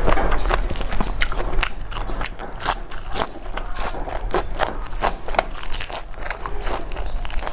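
Close-miked eating by hand: irregular crisp crunching and chewing as a mouthful of raw leafy greens and rice is bitten and chewed, with sharp crackles and mouth sounds.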